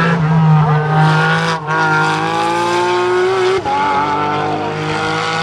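A GT3 race car's engine at full throttle, its pitch climbing steadily and broken twice by quick upshifts, about a second and a half in and again near three and a half seconds in.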